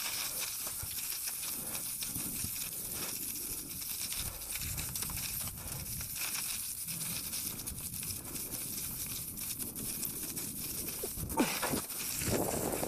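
Mountain bike rolling down a rough trail: steady tyre noise with many small crackles and clicks over a low rumble, under a constant high hiss.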